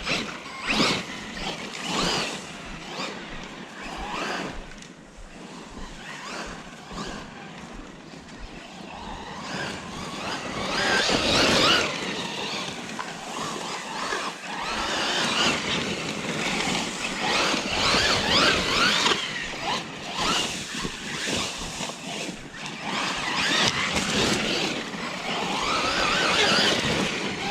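Losi RZR Pro R RC side-by-side being driven hard off-road: its electric motor whines, rising and falling in pitch as it accelerates and lets off, along with the tires scrabbling over dirt. The bursts come and go repeatedly, the loudest about a third of the way in and again later.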